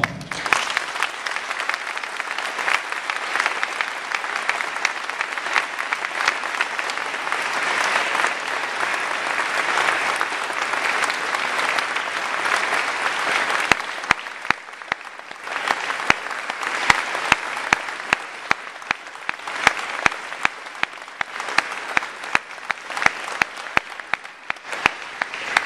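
Audience applauding: a dense, sustained round of clapping that thins briefly about fourteen seconds in, then picks up again with single loud claps standing out.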